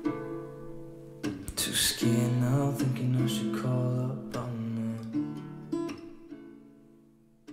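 Background music led by acoustic guitar, fading away over the last few seconds.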